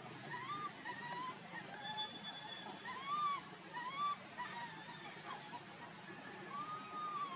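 Macaque coo calls: a series of short calls that rise and fall in pitch, roughly one or two a second, with a longer drawn-out call near the end.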